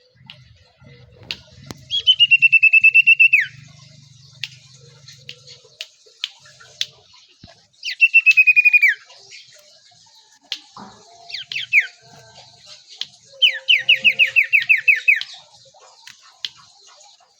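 A hand-raised sirtu, a small songbird, calling: three bouts of rapid, repeated whistled notes, each lasting a second or two, with faint clicks in between.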